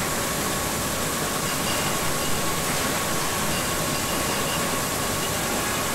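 Steady din of factory machinery: an even hiss with a constant tone running through it.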